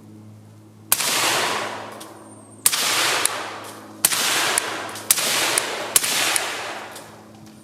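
Five suppressed shots from a 5.56mm AK-pattern rifle fitted with a Dead Air Wolverine silencer, fired one at a time about a second apart. Each sharp report is followed by about a second of fading echo, and a fainter sharp tick follows several of them.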